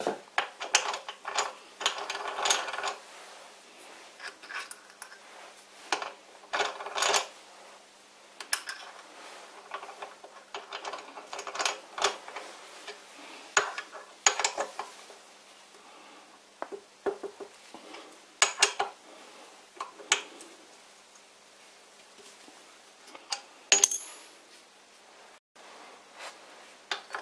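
A keyed Jacobs-style drill chuck being worked by hand: irregular metallic clicks and clinks as the chuck key turns the geared collar and tools are put into and taken out of its jaws.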